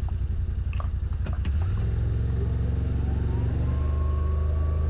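Vehicle engine running with a low rumble, a couple of clicks in the first second and a half; about 1.7 s in it grows louder and a whine rises in pitch and holds, as the vehicle pulls away.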